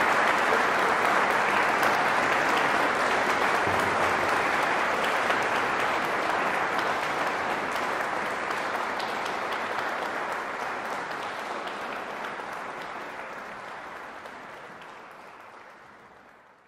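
Audience applauding, steady at first and then slowly fading out.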